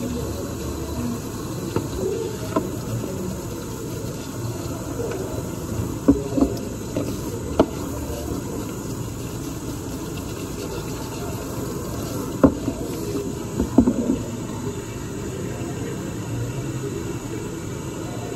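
Tap water running steadily into a sink basin while a makeup brush is rinsed and squeezed out under it, with a few sharp knocks against the basin, two of them close together about six seconds in and a last pair about twelve to fourteen seconds in.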